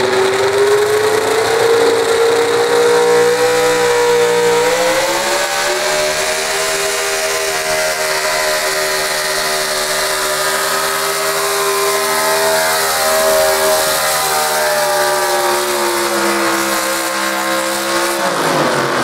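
A modified pulling pickup's engine at full power as the truck drags a weight-transfer sled. The pitch climbs over the first few seconds, steps up again, holds high and steady for most of the pull, then drops sharply near the end as the engine comes off the throttle.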